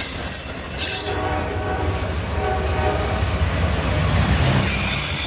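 Locomotive horn sounding two blasts, about a second in and again about two and a half seconds in, over the steady rumble of a passing train. Near the end a high-pitched wheel squeal starts up.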